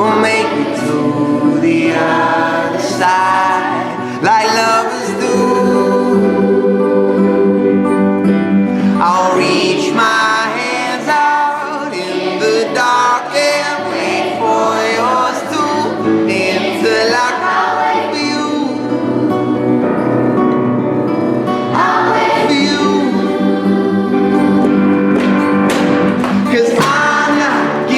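Background music: a song with sung vocals over steady instrumental backing.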